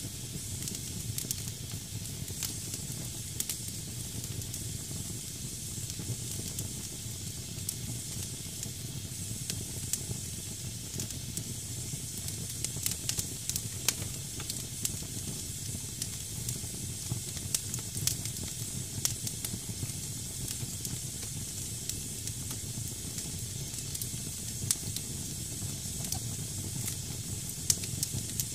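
Wood fire burning in a fireplace: damp logs hiss steadily as moisture boils out of them, with frequent scattered sharp crackles and pops over a low steady rumble.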